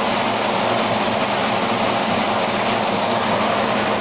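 Large spindle log debarker running with a big log clamped between its spindles, giving a loud, steady, dense mechanical noise.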